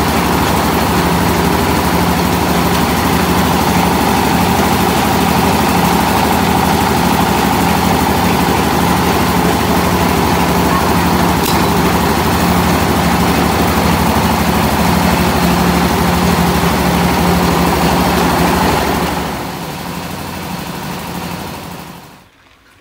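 Small engine-driven rice mill running steadily and loudly. Its level drops about nineteen seconds in and falls away near the end.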